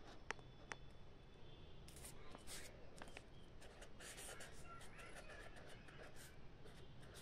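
Handwriting on paper: faint scratching strokes in short, irregular bursts, with a couple of small sharp ticks in the first second.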